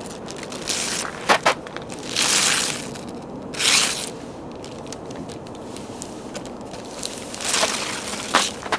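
Wrapping paper being torn and crumpled off a gift box: a few sharp crackles and two longer ripping rustles.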